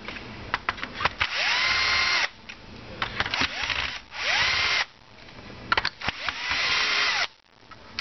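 Bosch cordless drill-driver backing screws out of a plastic tool housing: three short runs, each winding up to a steady whine and stopping, with sharp clicks in between.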